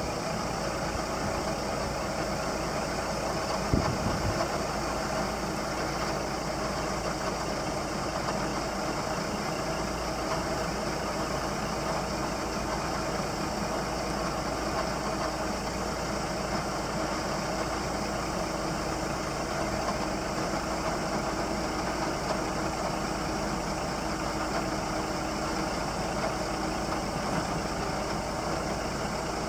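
Scania R480 truck's inline-six diesel engine idling steadily while the hooklift's hydraulics lower the hook arm, with a single clunk about four seconds in.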